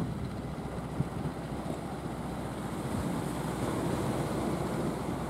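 Surf and wind on the microphone, with the engine of a motorised outrigger fishing boat running steadily underneath.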